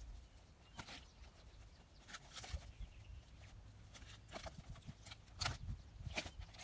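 Dry firewood branches knocking and clattering against each other as they are handled and stacked on a pile: scattered short knocks, the loudest about five and a half seconds in.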